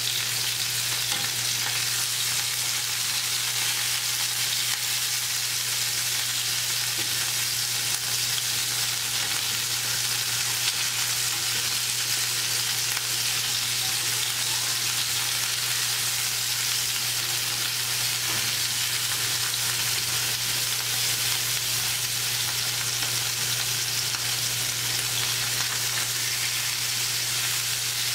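Chicken breasts searing in an oiled grill pan, sizzling steadily.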